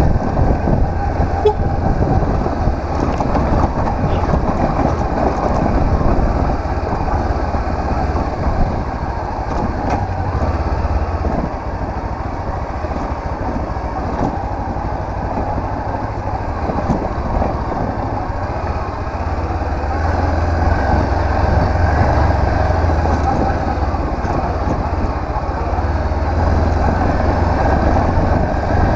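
Honda CB500X's parallel-twin engine running steadily while the motorcycle is ridden, with a low, continuous rumble of engine and riding noise.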